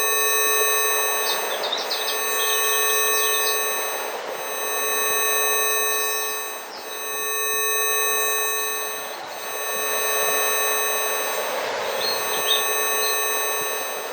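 Synthesized Rife healing frequencies: several steady pure tones held together, from a low hum near 450 Hz up to a thin high whine. Under them a rushing nature ambience swells and fades about every two and a half seconds, with birds chirping briefly here and there.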